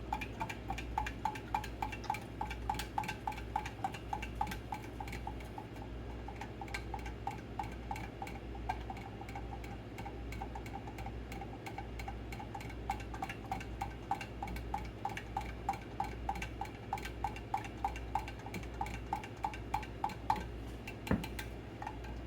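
Spoon stirring pickle brine of vinegar, water and salt, clinking against the side of the container about three times a second to dissolve the salt. A single knock comes near the end.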